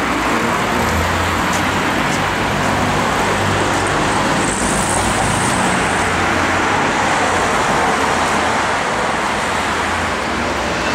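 Steady road traffic noise, a continuous rush of vehicles with a low hum underneath.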